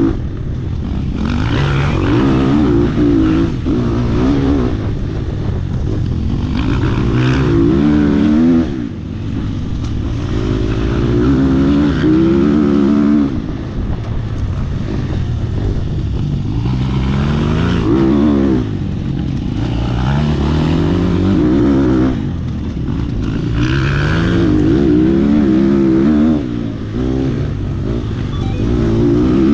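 Off-road dirt bike engine revving hard under the rider, its pitch climbing and falling back again and again as it is throttled and shifted through the gears on a dusty trail. Heard close up from a camera on the bike, with a steady rush of wind and tyre noise underneath.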